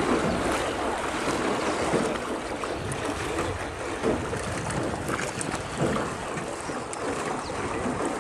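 Water splashing and lapping around a small rowboat as its oars dip and pull. The sound is a steady watery wash with stronger splashes at irregular moments.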